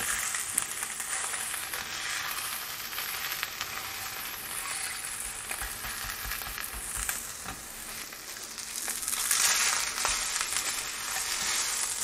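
Chicken leg pieces sizzling as they brown in a thin layer of oil in a stainless steel frying pan, sticking to the pan as the fond forms. There are a few light knocks as tongs move the chicken, and the sizzle grows louder for a moment about nine seconds in.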